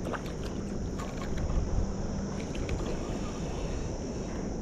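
Wind on the microphone and water sloshing, with a few light clicks and splashes in the first three seconds as a small bream is reeled to the surface on a spinning reel.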